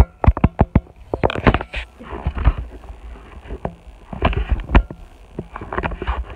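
Handling noise on a handheld camera's built-in microphone: irregular sharp knocks and rubbing over a heavy low rumble, with a quick run of knocks in the first second and a half.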